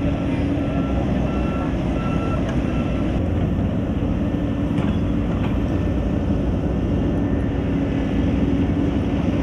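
Heavy road-construction machinery running: a steady engine drone with a constant low hum.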